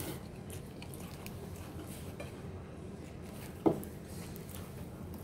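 Quiet eating sounds: crispy fried chicken being bitten and chewed, with faint scattered clicks over a steady background hum. One sharp knock about three and a half seconds in is the loudest sound.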